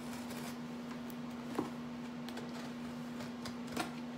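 Scissors and a cardboard box being handled to open it: a couple of short soft clicks, about a second and a half in and again near the end, over a steady low hum.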